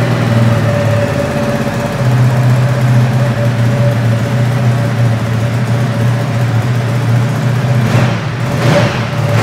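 Ducati Diavel 1260S's 1262 cc L-twin engine idling steadily just after being started.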